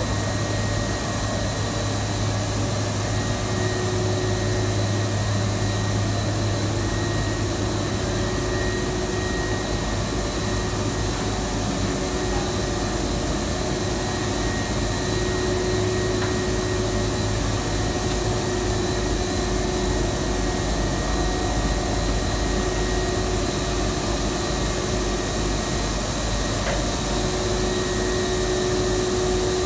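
Steady running noise of a PE coating machine for paper cup stock: a constant low hum with several steady whining tones above it and an even hiss, unchanging throughout.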